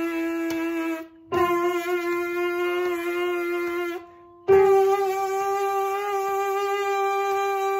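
A brass player's lip buzz holding long, steady notes, each stepping a little higher in pitch, with short breaks for breath between them. This is a pitch-matching buzzing exercise climbing up a fifth; the last and loudest note is a high G.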